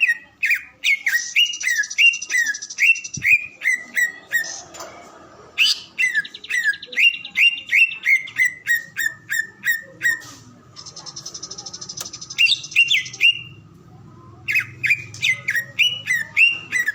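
Cucak ijo (green leafbird) singing: runs of quick down-slurred whistled notes, about two a second, alternating with buzzy, high chattering trills.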